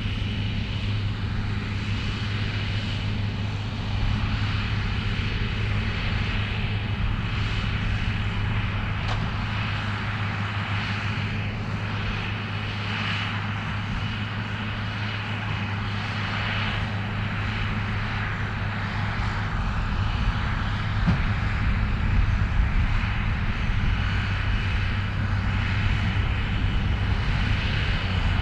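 New Holland TM155 tractor running steadily under load while pulling a Claas Variant 385 round baler, the engine drone mixed with the baler's working noise.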